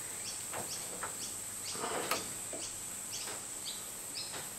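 Background chirping, about two short falling chirps a second, over a steady high-pitched whine like an insect drone. A light clack about two seconds in as a digital caliper is set against the freshly turned crankshaft journal.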